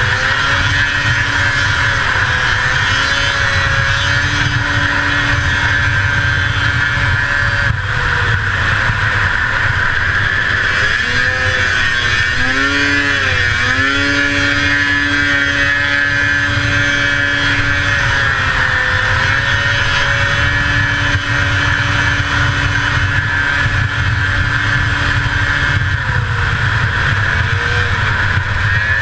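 The 500cc two-stroke engine of a 1981 Arctic Cat El Tigre 6000 snowmobile running hard at race pace. Its pitch holds steady for long stretches, drops and climbs back twice in quick succession about halfway through, dips gently a little later, and dips again near the end as the throttle eases and reopens.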